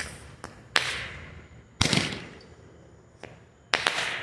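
Crazy Aces Roman candle firing shots: three sharp pops, about a second in, near two seconds and near the end, each followed by a hiss that fades away.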